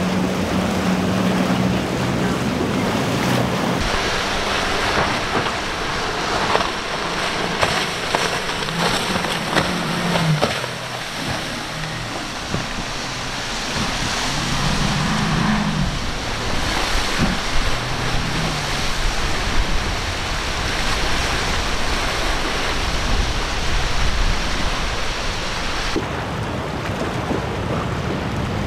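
Powerboats with outboard engines running through rough inlet water: engine drone over the rush of wake spray and waves, with wind buffeting the microphone. The mix shifts abruptly about four seconds in and again near the end.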